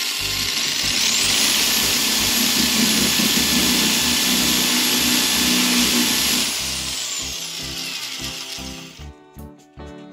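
Electric drill boring a hole. The motor speeds up about a second in, runs steadily for about five seconds, then winds down and fades out. Background music plays throughout.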